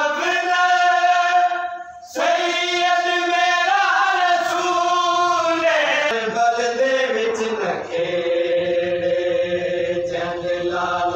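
Men's voices chanting a noha, a Shia lament, in long held notes with a brief pause about two seconds in.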